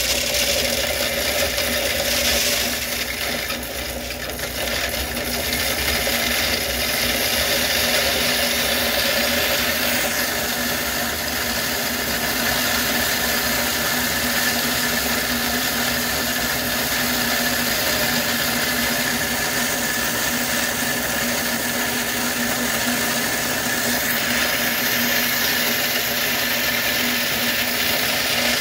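Cheap electric corn grinder running steadily under load, grinding dried corn kernels into meal as they are fed into its hopper.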